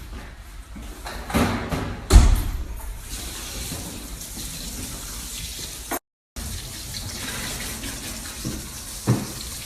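Tap water running steadily. There is a loud knock about two seconds in and a smaller one near the end, and the sound drops out for a moment just after the middle.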